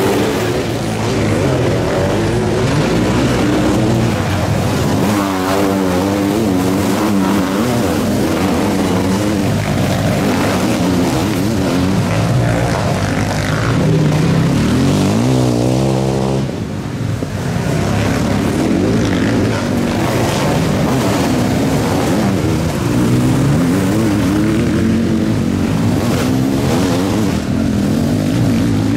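A pack of motocross sidecar outfits racing on a dirt track, many engines revving hard at once. Their pitch sweeps up and down as outfits pass, clearly about five seconds in and again around fifteen to sixteen seconds in.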